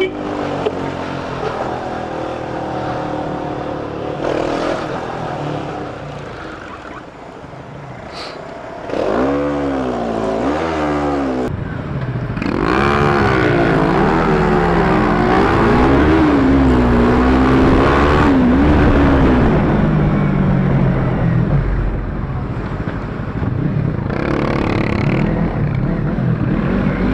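Motorcycle engine under way, the Bajaj Pulsar RS200's single-cylinder, with a steady rush of wind and road. Its pitch swings up and down as the throttle is worked and gears change, and it gets louder about nine seconds in and again a few seconds later.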